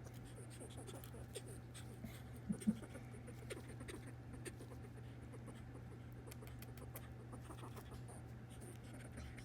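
Faint scratching and small clicks from a pet squirrel, with two sharper clicks about two and a half seconds in.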